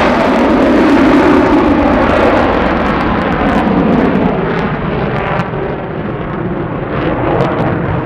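F-35 fighter's single F135 jet engine in afterburner: a loud, steady jet roar, strongest in the first couple of seconds, with crackling through the middle and later part.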